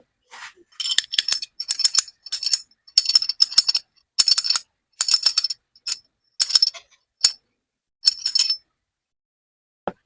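Small metal parts clinking and rattling against each other in about a dozen short bursts, stopping shortly before the end.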